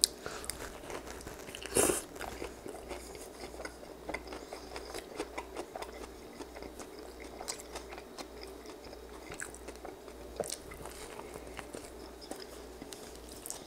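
A person biting and chewing a stuffed pita wrap close to the microphone: many small irregular chewing clicks, with a louder crunch about two seconds in.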